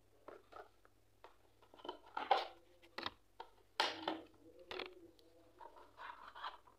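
Cardboard phone box and its paper inserts being handled and pulled apart: a string of irregular rustles, scrapes and light knocks, the loudest a little past two seconds and again near four seconds in.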